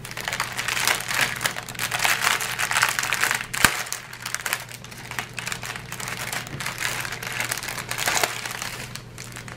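Clear plastic bags of diamond painting drills crinkling as they are handled, with one sharp click about three and a half seconds in.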